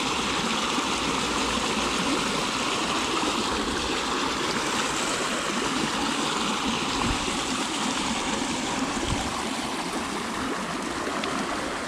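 Steady rush of flowing river water, an even noise that holds level throughout.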